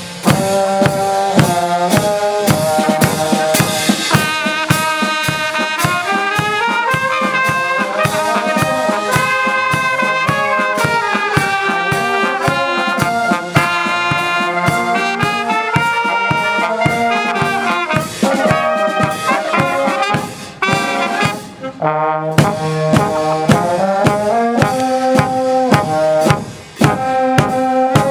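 A village wind band of trombones, trumpets, tubas, saxophones and clarinet playing a tune together over a steady bass-drum beat. The music breaks off briefly about three-quarters through, then the full band comes back in.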